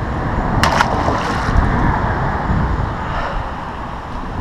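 A brief splash of a released largemouth bass going back into the pond, about half a second in. Under it, a steady rumble of wind on the microphone and road traffic.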